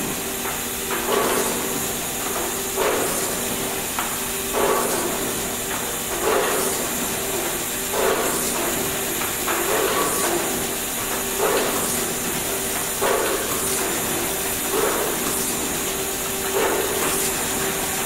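Markem rotary pad printer for golf balls running through its cycle, about once every 1.7 seconds: each cycle a sharp clack followed by a hiss of air, over a steady machine hum.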